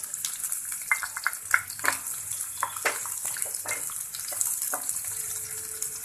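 Sliced onions sizzling in hot oil in a wok, with repeated scraping strokes of a wooden spatula stirring them against the pan.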